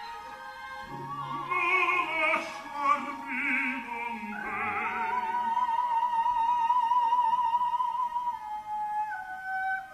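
Operatic singing with orchestra. Voices with wide vibrato sing over the orchestra, a lower line first, then one voice holds a long high note from about five to eight seconds in.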